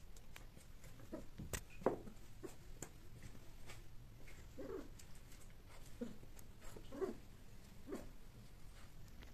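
Domestic cat making a string of short calls, about one a second, with a few faint clicks in between.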